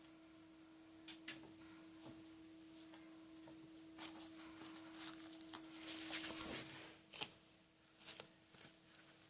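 Scattered light clicks, taps and rustling over a steady low hum, busiest from about four to seven seconds in.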